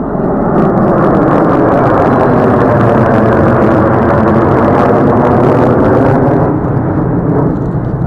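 Loud, steady jet engine noise from a formation of four military jets flying low overhead, easing off near the end as they pass.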